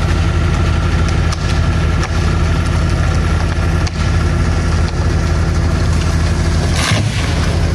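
An engine idling steadily at an even speed, with a brief burst of noise about seven seconds in.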